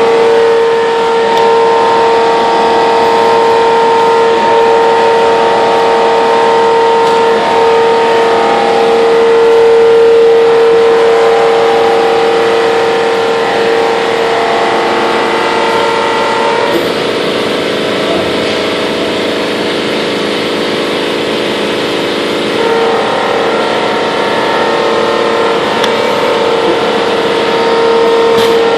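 Trumpf TC500 CNC punch press running continuously, punching ribs from .016-inch aluminium sheet. The machine noise is loud and steady, with a constant whine running through it.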